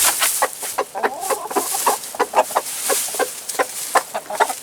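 Chickens clucking in a coop: a steady run of many short clucks and calls.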